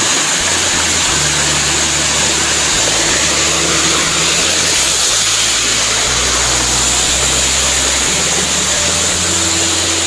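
Waterfall pouring steadily, a constant loud rushing of falling water.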